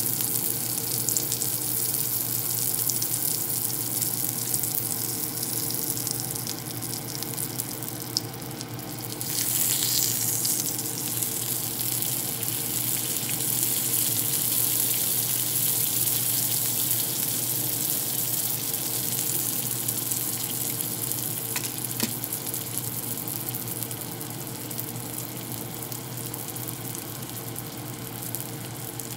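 A small piece of meat sizzling in a nonstick frying pan, a steady hiss of fat frying that swells briefly about ten seconds in.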